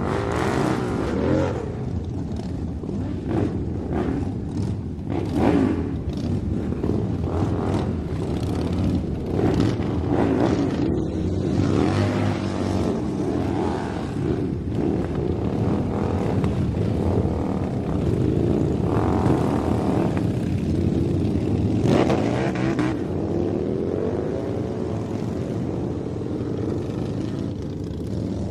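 Motorcycle engine running continuously, its pitch rising and falling over and over as the revs change.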